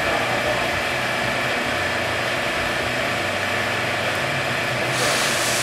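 Steady mechanical drone of a servo-hydraulic loading rig running a fatigue test, its low hum shifting back and forth in pitch. A hiss comes in near the end.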